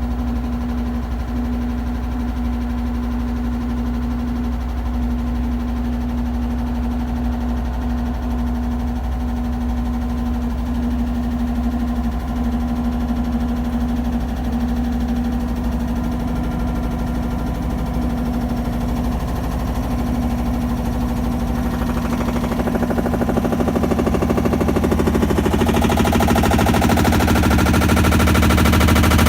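Samsung washing machine running, a steady hum with a fast, fine rattle. It grows louder and harsher about two-thirds of the way through and again near the end. The machine has a banging fault that remained after the recall repair and drum replacement.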